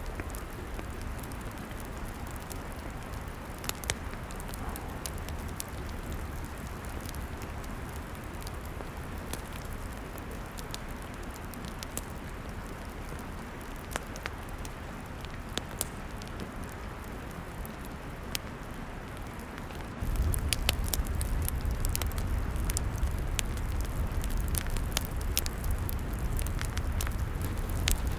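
Log fire crackling: a steady hiss with scattered sharp pops and snaps. About two-thirds of the way through, the sound abruptly gets louder, with a deeper rumble and more frequent pops.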